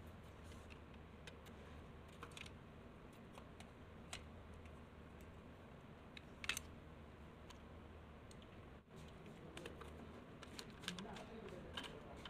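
Faint scattered clicks and taps of a screwdriver and a sheet-metal switch panel being handled on a bench drill press head, the sharpest click about six and a half seconds in.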